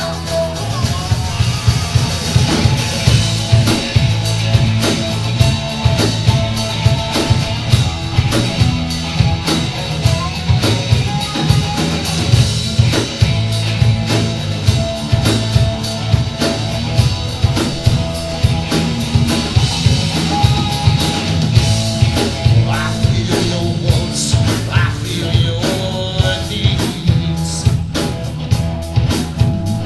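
Rock band playing live: a drum kit keeps a busy, steady beat over bass and guitar.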